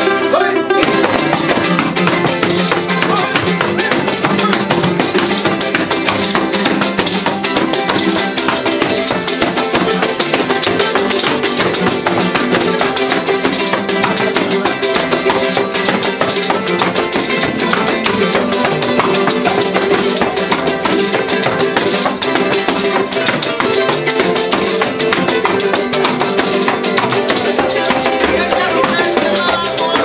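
Son jarocho ensemble playing: several jaranas strummed in a fast, steady rhythm, with the jingles of a hand-held pandero (tambourine).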